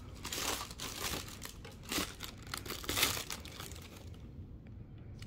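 Tissue paper inside a shoebox crinkling and rustling in irregular bursts as a sneaker is lifted out of it, dying down about four seconds in.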